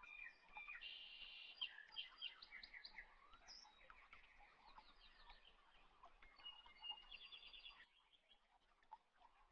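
Faint birdsong: quick chirps and short trills, breaking off about eight seconds in.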